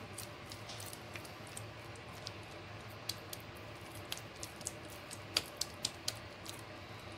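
Irregular light clicks and taps as hands work a soft chicken mixture in a plastic bowl, with a small cluster of louder clicks a little past halfway, over a low steady hum.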